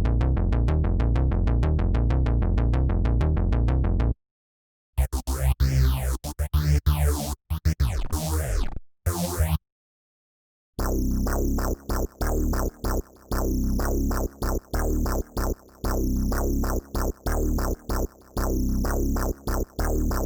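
Electronic loops played from AIR Transfuser 2 presets, in three short demos with brief silences between them. First comes a fast, evenly repeating synth pattern. Next is a choppy, stuttering passage with sweeping pitches. Last is a chopped drum-machine groove that keeps cutting in and out.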